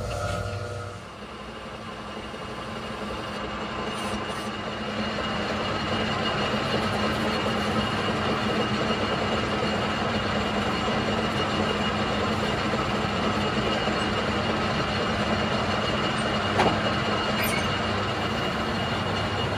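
Manual metal lathe starting up about a second in and gathering speed over the next few seconds, then running steadily with its four-jaw chuck spinning: a steady mechanical hum with a faint high whine.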